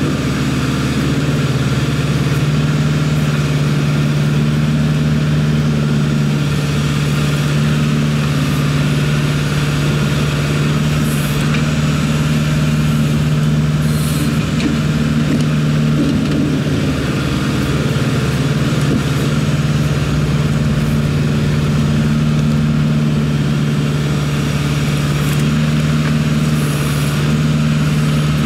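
Kubota L48 backhoe's diesel engine running steadily at an even pitch.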